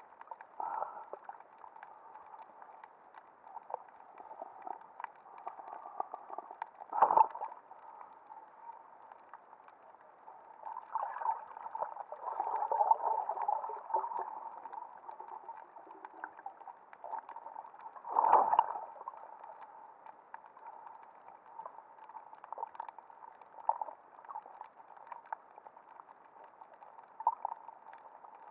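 Muffled underwater sound heard through an action camera's waterproof housing: a steady hiss of water with scattered faint clicks, and two louder brief surges of noise, about seven and eighteen seconds in.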